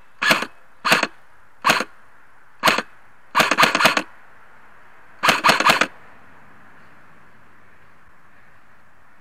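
Airsoft electric rifle (AEG) firing close by in about six short bursts. The last two bursts are longer strings of rapid shots, and the firing stops about six seconds in.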